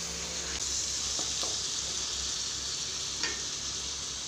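Chopped tomatoes sizzling in hot oil with sautéed onions in a pan, a steady frying hiss, while being stirred with a few light strokes of the spoon.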